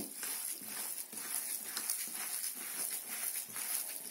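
Gloved hands kneading minced beef and pork in an enamel bowl: an irregular run of soft, wet squelches and slaps, several a second.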